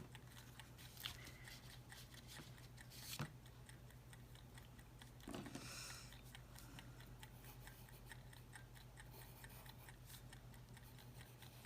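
Near silence with a low steady hum, broken by small faint clicks, one sharper about three seconds in, and a brief soft rustle about five seconds in, from paper and cardstock being handled.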